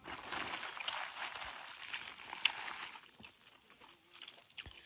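Thin plastic bag crinkling and rustling as a hand digs into it for sticky rice, for about three seconds, then only a few faint handling clicks.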